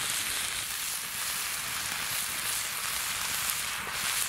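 Steak and onions sizzling steadily in a frying pan set over a campfire.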